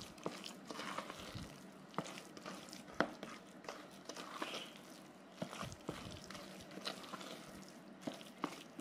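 Orange plastic spatula stirring a damp, crumbly grated-cassava dough in a plastic bowl: soft scraping and squishing with irregular light knocks of the spatula against the bowl, the sharpest knock about three seconds in.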